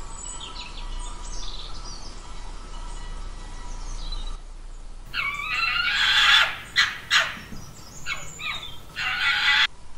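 Faint chirps of small birds over a steady background tone. From about five seconds in, a run of loud, sharp, rasping calls from a fiery-billed aracari, a small toucan, stopping just before the end.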